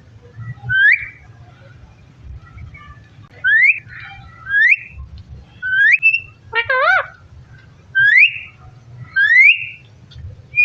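Pet parrot whistling: a string of short whistles that slide upward, about six of them, with one wavering, warbling call a little past the middle.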